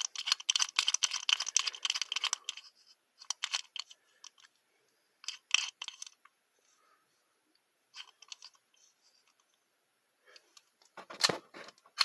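Combination padlock being turned by hand: a rapid run of little clicks from its mechanism for about two and a half seconds, then shorter bursts of clicks with pauses between as it is turned again.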